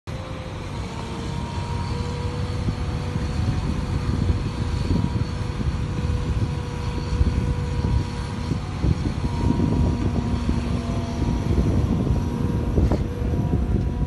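Liebherr 944 crawler excavator's diesel engine running under load with a steady whine as it digs and raises a full bucket, over a continuous low rumble.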